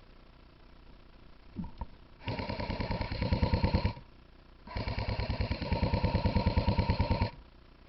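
Airsoft electric rifle (AEG) firing on full auto in two long bursts: a buzzing run of rapid shots for about a second and a half, then after a short pause a longer burst of about two and a half seconds. A faint click comes just before the first burst.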